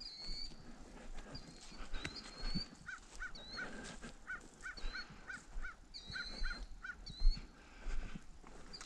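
Birds calling outdoors: short high chirps repeat throughout, and in the middle comes a run of shorter, lower calls at about three a second. Footsteps crunch and thump over the ground, with one sharp knock about seven seconds in.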